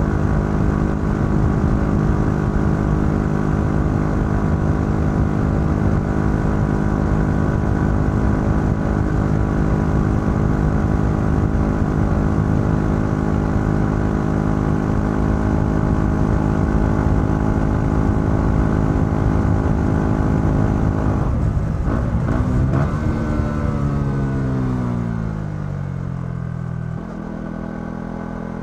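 Yamaha XSR 125's single-cylinder four-stroke engine through its stock exhaust, running at a steady pitch while the bike cruises. About 21 seconds in the throttle closes and the revs fall away in a long downward glide as the bike slows, settling quieter and lower near the end.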